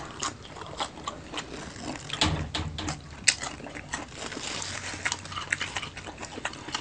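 Close-miked chewing of roast pork (lechon), with many irregular wet lip-smacking clicks and a short low hum about two seconds in.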